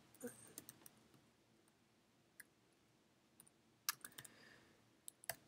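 Faint, scattered keystrokes on a computer keyboard: a few taps at a time, with near silence between them.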